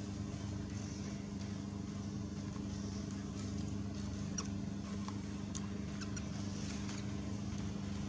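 Steady low mechanical hum of a running motor, with a few faint short high ticks around the middle.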